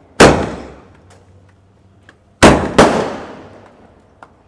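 Firecrackers going off: three loud bangs, each dying away over about a second. The first comes just after the start and the other two come close together about halfway through.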